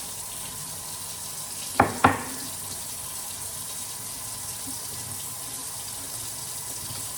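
Water tap running steadily into a sink, with two sharp knocks in quick succession about two seconds in.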